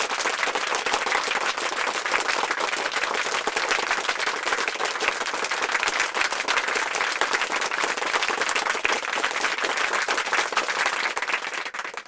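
Crowd applause: many hands clapping at an even level, stopping abruptly near the end.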